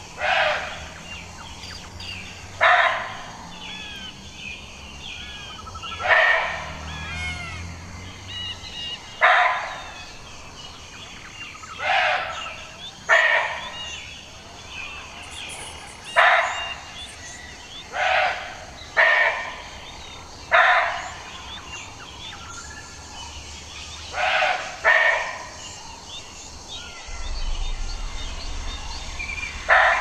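A deer calling: about a dozen short, loud calls, one every one to three seconds, with birds chirping in the background.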